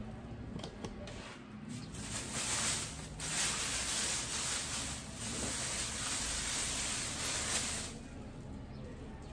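Thin clear plastic bag crinkling and rustling as it is pulled down off a cooker; the rustling is loudest from about two to eight seconds in.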